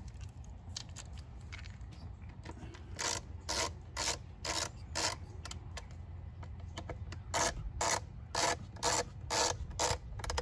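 Small Phillips screwdriver turning in the mass airflow sensor's retaining screw: a series of short strokes, about two a second, in two runs with a pause between, as the screw is driven home.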